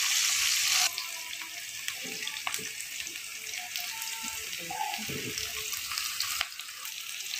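Sliced onions frying in hot oil in a wok, a steady sizzle that is loudest in the first second, then settles to a softer hiss as a wooden spatula stirs.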